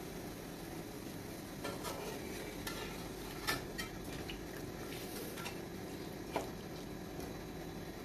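A metal ladle stirring a thick potato-and-mutton curry in an aluminium pot, with light clinks and knocks against the pot every second or so, the sharpest about three and a half and six and a half seconds in, over a steady low hiss.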